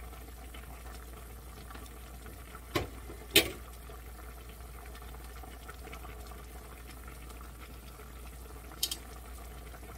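Pot of pork kimchi stew bubbling at a steady boil on a gas burner. Sharp knocks cut across it, two about three seconds in (the second is the loudest) and one more near the end.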